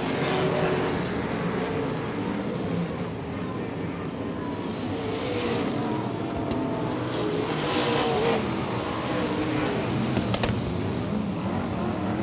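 360 wingless sprint cars' 360-cubic-inch V8 engines racing around a dirt oval. The sound swells and fades as the cars pass, louder about half a second in, around five seconds and around eight seconds, with a short sharp click about ten seconds in.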